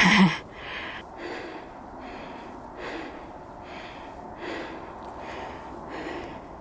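A hiker's heavy, panting breaths, about one every second, from climbing a steep snowy slope out of breath.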